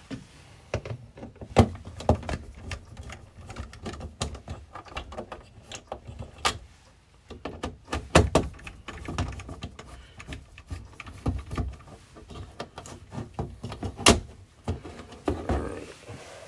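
Screwdriver work on a wall-mounted RV thermostat as it is unscrewed and pulled off the wall: irregular clicks, scrapes and small knocks of metal on plastic, with a few sharper knocks.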